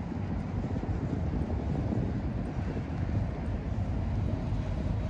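Steady low diesel drone from ships moored at the quay, a continuous rumble with no sharp events.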